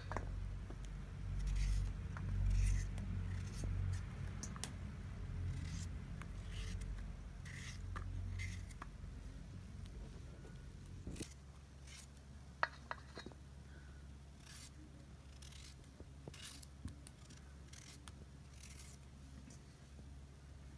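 A kitchen knife slicing through raw potatoes, cutting them into sticks for French fries, with a crisp cut about once a second. A few sharper clicks come about two-thirds of the way through. A low hum sits underneath and drops about halfway through.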